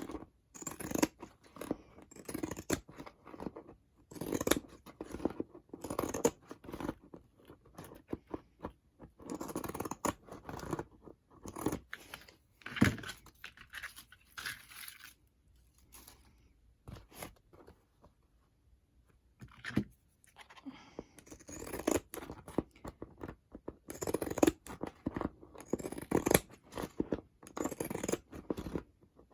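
Scissors snipping in irregular runs, mixed with handling and scraping of craft material, with a quieter stretch a little past halfway.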